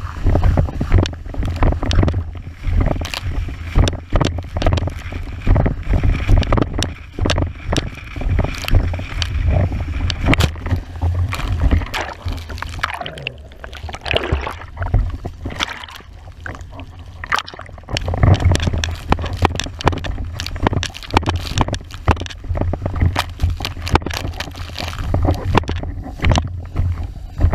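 Windsurf board planing over chop: water hissing and slapping against the board, with wind buffeting the microphone. About halfway through, the sound turns muffled and gurgling for several seconds while the microphone is underwater. Then the rushing water and wind rumble return.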